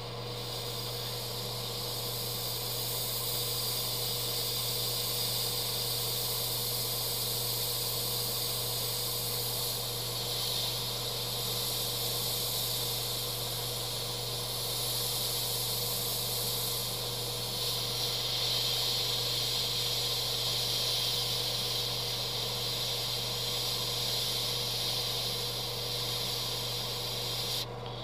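Harder & Steinbeck Infinity airbrush with a 0.15 mm needle hissing steadily as it sprays very thin candy paint in small dots. The hiss swells and eases a little and cuts off sharply near the end. A steady low hum runs underneath.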